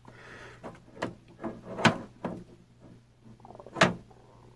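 A few sharp clicks and light knocks of handling, about five over four seconds, the loudest two near the middle and near the end.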